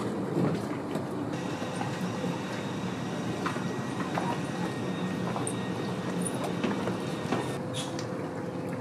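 Steady mechanical drone of a boatyard travel lift's machinery, with scattered metallic clinks and clanks.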